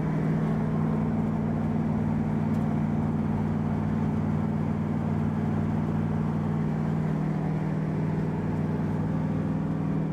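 Freshly installed 331-cubic-inch Ford V8 in a Mazda Miata running steadily at cruising speed, heard from inside the cabin with road noise.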